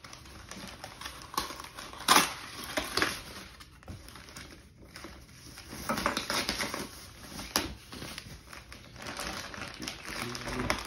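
Plastic packaging wrap being handled and pulled off scooter parts: irregular crinkling and rustling with sharp crackles and clicks, the loudest about two seconds in.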